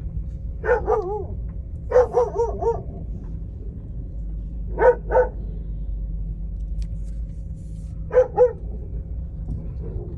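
Dog barking in short groups a few seconds apart: a pair, a quick run of about five barks, then two more pairs.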